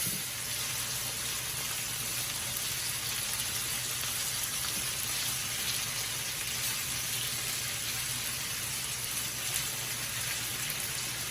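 Chicken pieces sizzling steadily as they fry in olive oil in a pan.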